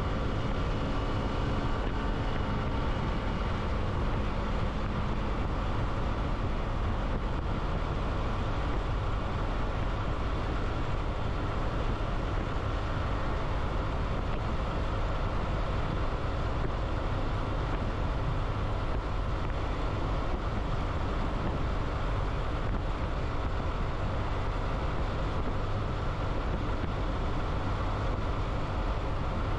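Steady running noise of a vehicle on the move: a low rumble of engine and road with wind noise, and a faint engine note that fades after the first few seconds.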